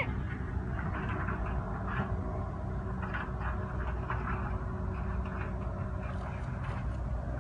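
Steady engine drone over a low rumble, with faint short calls scattered through it.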